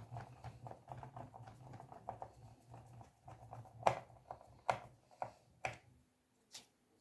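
Screwdriver driving small screws into a laptop's plastic bottom case: rapid ticking over a low hum that stops about six seconds in, then a few sharp clicks.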